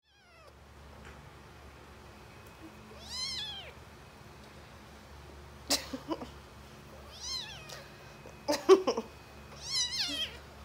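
Young tabby kitten meowing four times in thin, high calls that rise and fall in pitch, the last two close together near the end. A few sharp knocks come in between, the loudest about nine seconds in.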